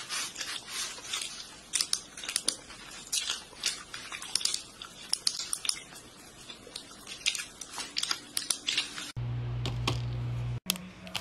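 Rapid, irregular clicking of typing on a computer keyboard. Near the end the clicks stop and a steady low hum sounds for about a second and a half.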